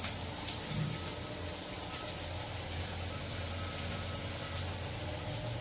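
Chopped onions frying in a steel kadai on a gas stove: a steady, quiet sizzle and hiss with a constant low hum underneath.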